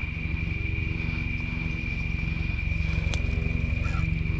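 An engine running steadily: a low, pulsing hum with a thin, steady high-pitched tone over it. There is a single sharp click about three seconds in.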